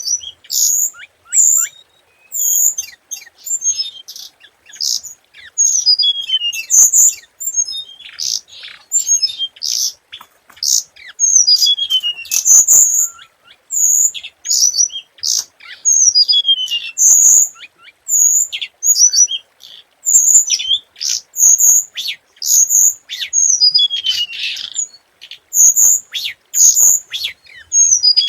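Hồng hạnh songbird singing its lure song: a continuous run of sharp, very high chirps, broken every few seconds by a quick falling trill of notes.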